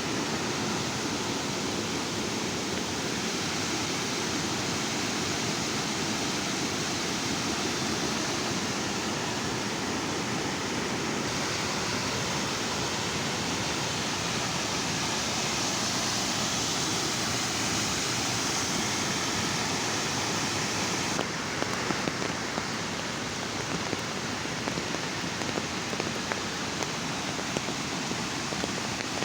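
Steady rush of water from a mountain stream tumbling down as a waterfall (jharna).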